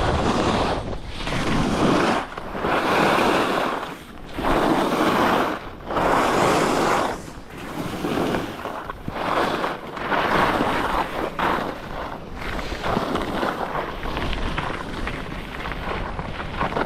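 Skis turning down a snowy piste: a rushing swoosh of the edges scraping the snow that swells and fades with each turn, roughly every two seconds, over wind rushing across the microphone.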